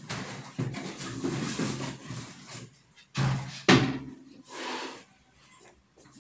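Embroidery floss being drawn through felt with a needle and the felt sheet handled: a run of scratchy rustling pulls, the sharpest and loudest a little before the middle, then a short rustle and quiet.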